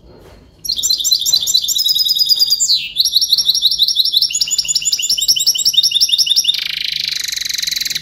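Caged European goldfinch singing a loud, fast run of high twittering notes that starts about half a second in. A quick downward slide comes near three seconds. The last second and a half is a buzzy trill that stops abruptly.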